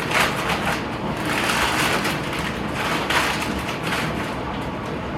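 Plastic chip bags crinkling and rustling as they are handled and packed away, in an uneven run of crackly rustles.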